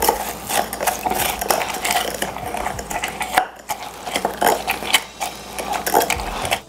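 Metal muddler mashing strawberries, basil, sugar and lemon juice in a tall glass: rapid repeated clinks and grinding of the muddler against the glass bottom, with a short break about three and a half seconds in.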